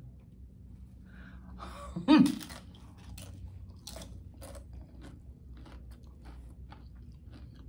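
Biting into a crisp corn tortilla topped with vegan ceviche, loudest about two seconds in, then crunchy chewing with several crunches a second.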